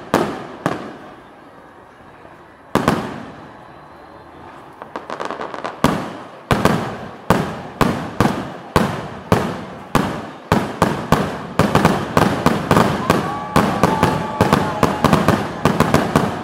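Fireworks bursting overhead: a few widely spaced bangs, then from about six seconds in a quickening barrage of several bangs a second, each trailing off.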